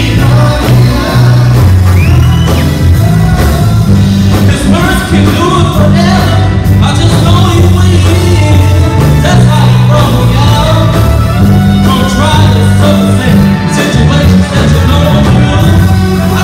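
Live gospel quartet music played loud through a PA: a male lead vocal over electric guitar, bass, keyboard and drums.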